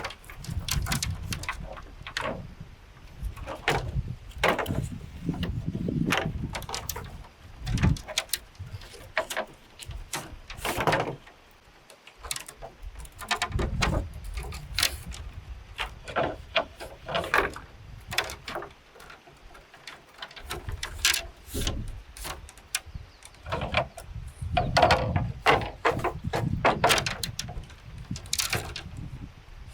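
Irregular sharp knocks and clatter of wood, in uneven clusters with short pauses between them.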